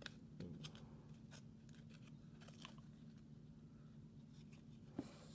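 Faint clicks and soft scrapes of glossy trading cards being slid through the hands one by one, over a low steady hum, with a slightly sharper tick about five seconds in.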